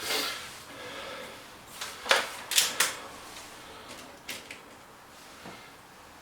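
Sharp mechanical clicks and clacks of a break-barrel air rifle being handled, cocked and loaded between shots. The loudest three come close together about two to three seconds in, with a few fainter clicks later.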